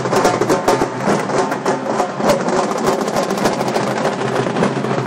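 Loud drumming with rapid, dense hits over a steady low hum.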